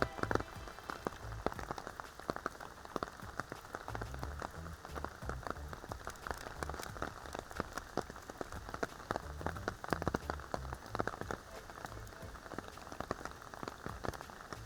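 Rain falling steadily, with many separate drops hitting close by and a low rumble coming and going underneath.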